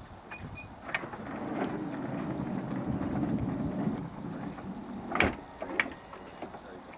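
Nissan Elgrand's electric sliding side door closing by remote: two short beeps, a click, then the door motor whirring for about three seconds as the door slides along. A loud thunk about five seconds in as the door shuts and latches, followed by a smaller click.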